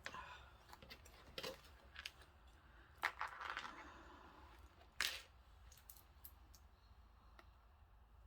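Light handling noises: a few sharp clicks and taps, the loudest about three and five seconds in, with brief rustling between them.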